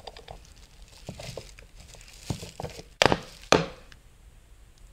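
Hand tools working a 10 mm bolt out of a transmission case: scattered light clicks and rattles, then two sharp knocks about half a second apart a little past halfway.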